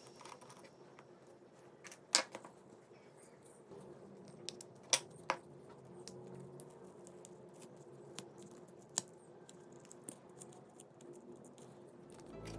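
Small sharp clicks and taps of tools and small parts being handled during a Nokia 6600 phone restoration, a few at a time with quiet gaps between; the loudest come about two seconds and five seconds in.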